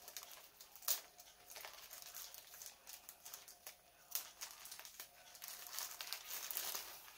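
Clear plastic packaging crinkling and rustling in the hands as a boxed kit is unwrapped, with irregular sharp crackles; the sharpest snap comes about a second in.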